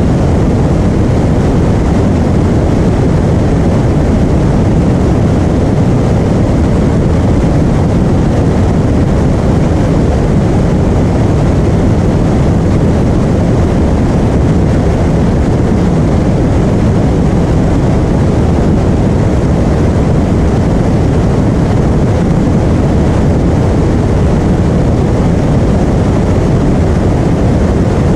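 Piper Arrow's single piston engine and propeller running steadily, heard as a loud, even drone inside the cabin.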